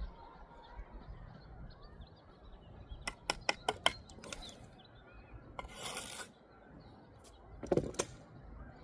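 Bricklaying work with hand tools on brick and mortar: a quick run of about five sharp taps a little after three seconds in, a scrape around six seconds, and a knock near the end.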